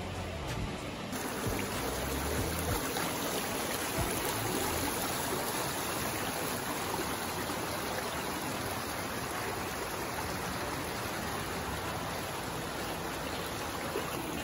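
Water running steadily through a shallow stream over slate rocks, with wind buffeting the microphone in the first few seconds.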